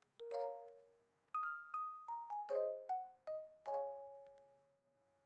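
Background music: a light melody of short struck notes, piano- or mallet-like, each ringing and fading.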